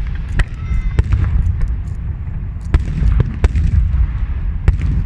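Aerial fireworks exploding: about seven sharp bangs at irregular intervals over a continuous low rumble of further bursts.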